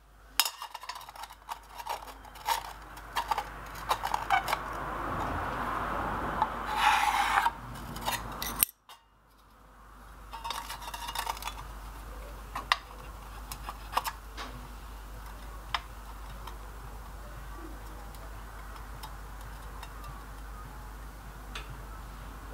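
Small steel tools (a steel rule, square and scribe) clinking and scraping against an anvil face and a piece of sheet steel as it is measured and marked out. There is a longer scrape about seven seconds in.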